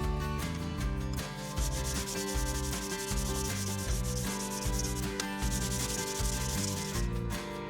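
Steel plane iron being lapped back and forth on 240 grit sandpaper, a rasping rub that swells and fades with each stroke, over background music.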